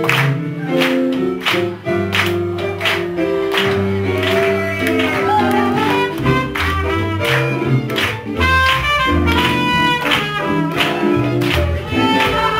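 Live swing jazz band playing an up-tempo tune, with a steady beat from the drums, a saxophone carrying the melody and a bass line underneath.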